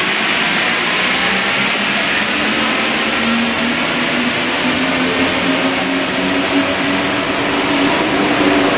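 Rubber-tyred Paris Métro train pulling out of the station: a loud steady rumble of tyres and running gear, with a motor whine whose pitch slowly rises as the train gathers speed.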